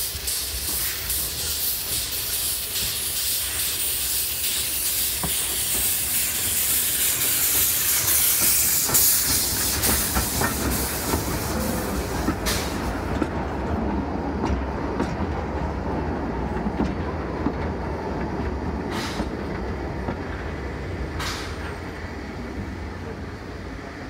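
Narrow-gauge steam locomotive coming past, with a loud steam hiss from around its cylinders that stops abruptly about halfway. A train of empty open freight wagons then rolls by with a low rumble and a couple of sharp clicks from the rail joints.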